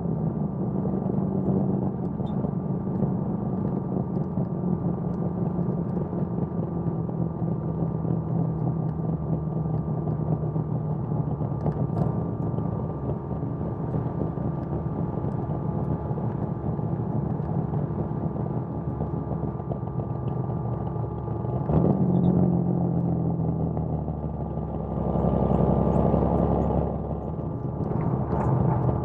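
Datsun 280ZX's L28 inline-six on triple Weber carbs, running through a 6-2-1 header and HKS Hi-Power exhaust while cruising at a steady note. About three-quarters of the way through, the exhaust swells briefly and then drops in pitch, and a deep low rumble follows near the end.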